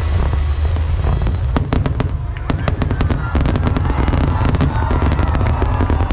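Large fireworks display: a continuous low boom of aerial shells bursting, with many sharp crackling pops that grow denser about a second and a half in.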